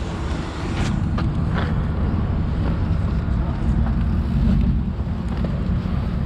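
Wind rumbling and buffeting on an action camera's microphone as a mountain bike rolls across pavement, with a few light clicks and rattles from the bike about a second in.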